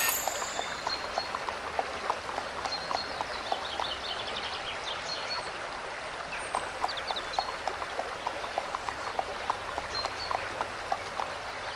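Cartoon sound-effects ambience: a steady hiss under many light, irregular ticks like small pony hooves clip-clopping, a few per second, with scattered high chirps.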